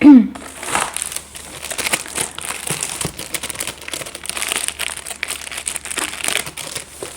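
Packaging crinkling and rustling in irregular bursts as it is handled and unwrapped, with a brief falling voice sound right at the start.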